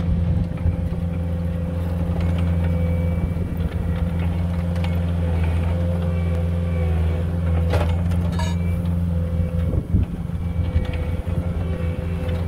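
Compact track loader's diesel engine running steadily at high revs while the machine drives and bounces its bucket to sift dirt clods. Two sharp knocks sound about eight seconds in.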